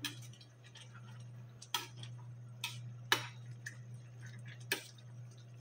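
A metal ladle stirring greens in a small stainless steel saucepan, clinking against the pot about five times at uneven intervals, over a steady low hum.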